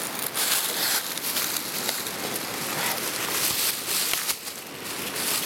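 Dry fallen leaves rustling and crackling continuously with many small crunches, as a dog shifts and chews a stick in the leaf litter and someone steps through it.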